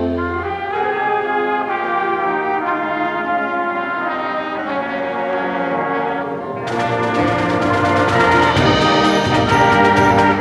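School concert band of woodwinds, brass and percussion playing held, stacked chords. About two-thirds of the way through, the full band enters louder, with percussion striking a steady beat.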